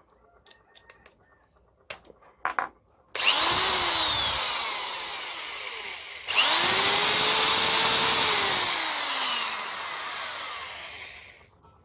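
Ryobi 110 V corded electric drill run free twice, with no speed control, so each trigger pull spins the motor straight up to a high whine, which drops in pitch as it coasts down on release. The second run holds full speed for about two seconds before winding down. A couple of short clicks come before the first run.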